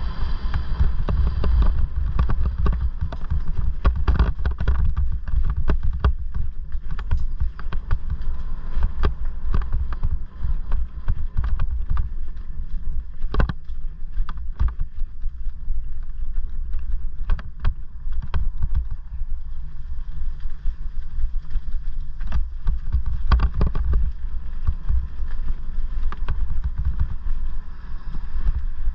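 An electric mountain bike riding over a rough dirt and stone track: a constant low rumble of wind on the helmet microphone and tyres on the ground, with frequent sharp knocks and rattles as the bike jolts over stones and roots. A faint steady whine, the Bafang mid-drive motor, shows near the start and again near the end.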